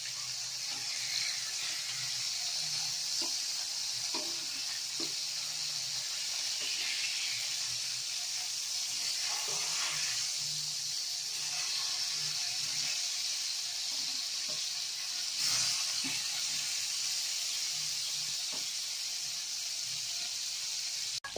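Seer fish steaks shallow-frying in hot oil in a flat pan: a steady sizzle, with light clicks of a steel spoon and spatula against the pan as the pieces are turned. The sizzle swells briefly about three-quarters of the way through.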